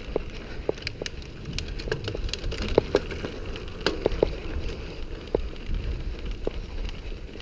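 Mountain bike rolling over a rough, cracked concrete road: irregular sharp clicks and rattles from the bike over a steady low rumble.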